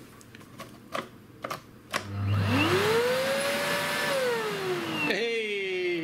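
A few clicks, then a Miele S6000 canister vacuum cleaner's motor starts about two seconds in with a rising whine. It runs for a moment, then falls in pitch and winds down after a click near the end. The motor is being switched on and off to test the repaired power switch.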